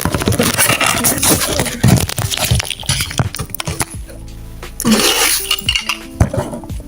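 Music playing, mixed with sharp clinks and rattles from objects being handled.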